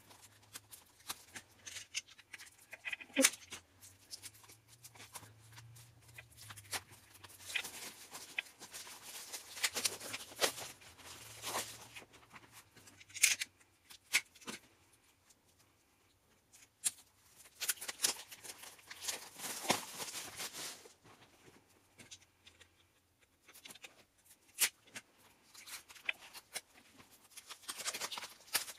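Cellophane shrink-wrap being peeled and torn off CD album boxes by hand: irregular crinkling and crackling with sharp clicks and scratches, coming in bursts with short pauses between.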